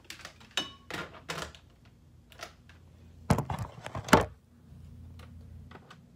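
Handling noise: a run of short knocks and clunks, with a louder cluster a little past three seconds and the loudest thump about four seconds in. A faint steady low hum follows.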